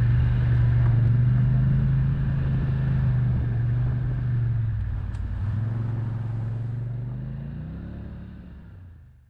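ATV engine running steadily while riding a dirt trail, with its pitch rising slightly near the end, fading out gradually to silence.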